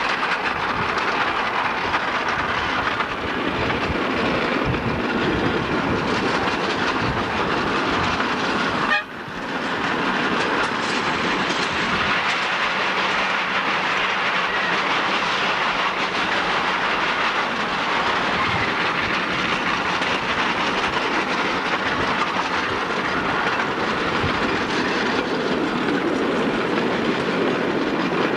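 A 10.25 in gauge miniature railway train running, heard from a passenger carriage: a steady rumble and clatter of wheels on the rails, with a brief dip about nine seconds in.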